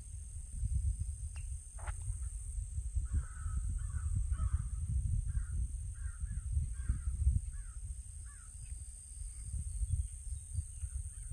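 A crow cawing: a quick run of about eight caws from about three seconds in, and a few fainter ones near the end. Under it, wind rumbles on the microphone and there is a steady high hiss.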